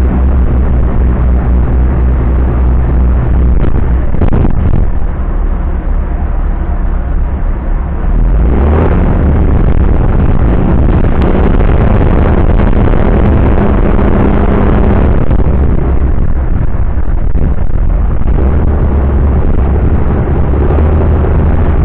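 Small harbour ferry's engine running with a steady low hum, heard from its open deck. It grows louder and fuller about eight seconds in as the ferry comes in to berth.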